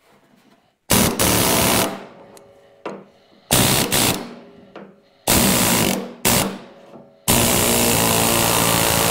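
Steck Skin Zipper, a pneumatic hemming tool, hammering rapidly in five trigger bursts as it folds a new sheet-steel door skin's edge flange over the door frame to a 45-degree bend. The last burst is the longest, about two seconds.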